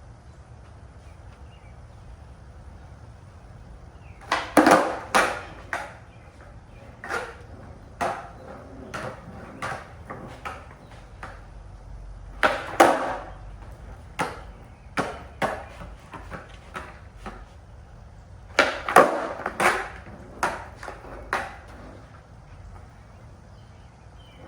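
Skateboard kickflip attempts: sharp clacks of the board popping, flipping and slapping down, in clattering clusters of several hits each. The loudest clusters come about five, thirteen and nineteen seconds in.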